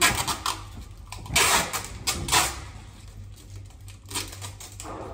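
Several short rustling and clattering noises of objects being handled, the loudest about one and a half and two and a half seconds in.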